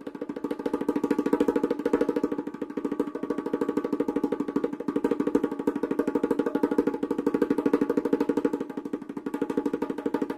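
Traditional percussion beat: a fast, even roll of struck pitched percussion, many strokes a second, with a steady ringing tone under the strikes.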